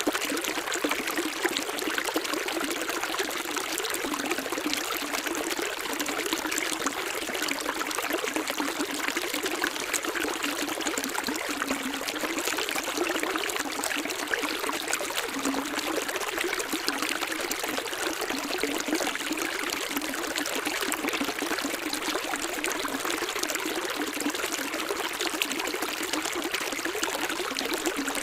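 Running water, such as a stream, flowing steadily with a trickling, gurgling sound that does not change in level.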